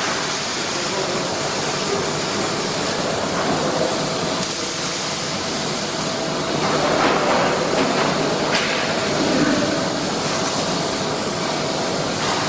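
Steady hissing workshop noise with a faint steady tone underneath, growing a little louder about seven seconds in.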